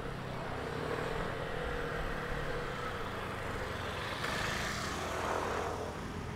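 ATR 72-600 twin-turboprop airliner at takeoff power, its engines and propellers giving a steady drone with a few held tones. The sound swells about four seconds in, then falls away as the aircraft passes and climbs out.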